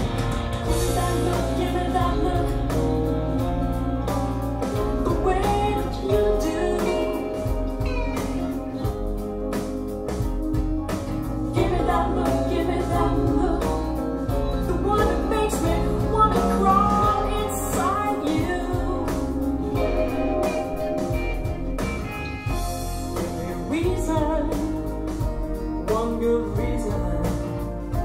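Rock song with a woman singing over guitar, bass and drums, played back through a pair of Bowers & Wilkins 685 S2 bookshelf speakers.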